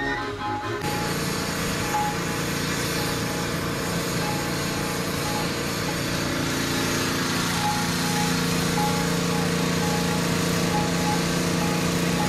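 Background music stops about a second in, then a small engine runs steadily at an even pitch.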